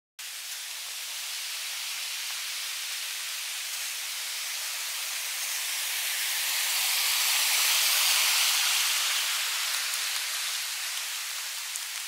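Mountain stream rushing over rocks, a steady hiss of running water that swells to its loudest about two-thirds of the way through and then fades a little.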